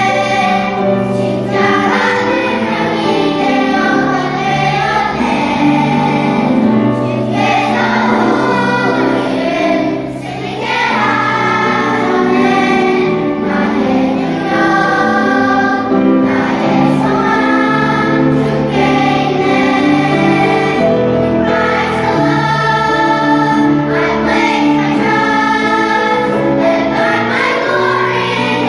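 Choir music: a choir singing a slow song in long, held phrases.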